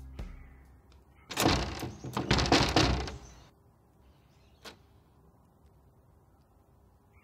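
Metal security screen door rattling and knocking for about two seconds as it is handled and opened, then a single sharp click a little later.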